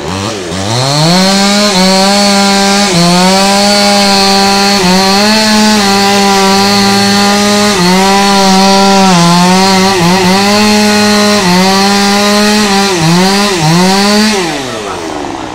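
Proquip MS 5800 two-stroke chainsaw opened up to full throttle and sawing into a tamarind trunk, its pitch sagging briefly several times as the chain loads in the cut. Near the end it falls off the throttle back down toward idle.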